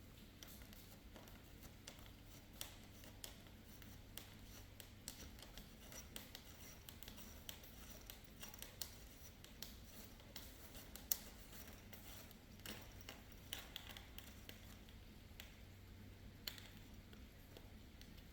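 Faint, scattered clicks and light scraping of small parts being handled while working on a string trimmer's drive shaft, with a sharper click about eleven seconds in and another near the end.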